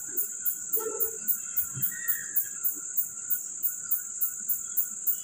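Crickets chirping: a steady high trill with a louder pulse about three times a second.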